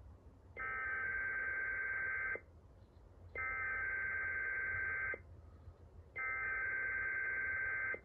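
EAS SAME header data bursts from a Sage EAS ENDEC sending a Required Weekly Test: three identical bursts of harsh digital warbling tones, each about two seconds long with about a second between.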